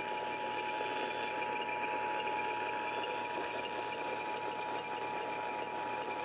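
Emergency Alert System attention signal: a steady two-tone alarm held unbroken over a background hiss, announcing that an emergency alert message follows.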